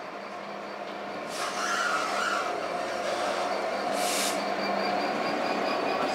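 Class 66 diesel locomotive's EMD two-stroke engine running as it pulls a train slowly past, with a steady hum over the rumble of the train. It grows louder about a second in, and a brief hiss comes at about four seconds.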